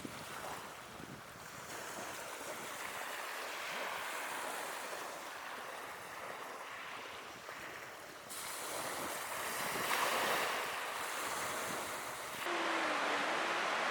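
Ocean waves washing in and drawing back, swelling and easing in surges. Near the end the sound cuts abruptly to a louder, steadier rush of water.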